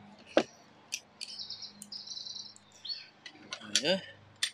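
Metal hand tools clicking and clinking against the aluminium engine cases and the bench a few times, with a small bird chattering in a quick run of high chirps in the middle and a brief voice near the end.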